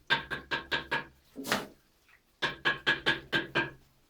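Rapid hammer blows in runs of five or six, about five a second, each with a short ringing tone.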